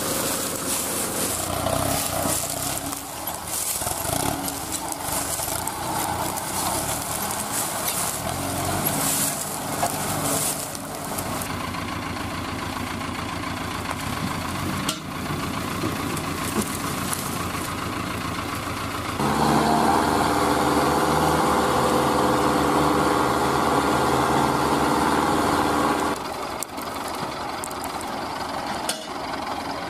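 Mahindra Arjun Novo 605 tractor's diesel engine running steadily, with the crackle and rustle of dry cane trash being pulled away during the first ten seconds or so. About two-thirds of the way through, the engine revs up to a louder, steady note for about seven seconds as it tries to move the loaded sugarcane trolley bogged in the mud, then drops back suddenly to a lower running note.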